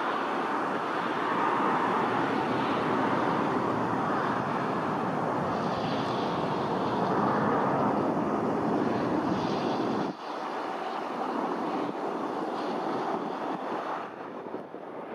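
Boeing 747-8 freighter's four GEnx turbofan engines running steadily as the jumbo jet comes in to land low over the runway. The level drops slightly about ten seconds in.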